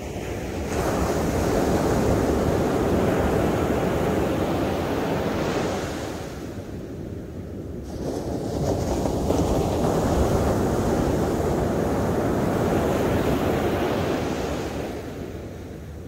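Ocean surf breaking and washing up a sandy beach: two long rushing swells of wave noise, with a brief lull between them about halfway through.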